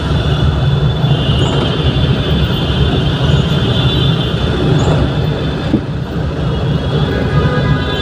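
Steady low rumble of heavy vehicle traffic, with a thin steady high whine above it.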